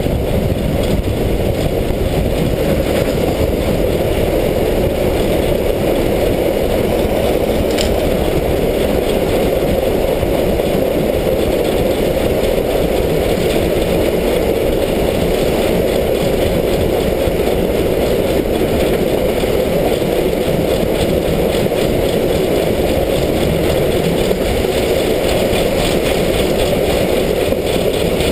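Slovenian Railways 33-class 2-10-0 steam locomotive running through a tunnel, heard from a camera fixed to its side: a steady, loud, dense running noise, with a single sharp click about eight seconds in.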